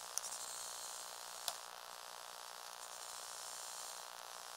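Small electric motor and gears of a Lego Technic grader whirring faintly and steadily as it drives, heard as a high hiss-like buzz. Two sharp clicks come in the first second and a half.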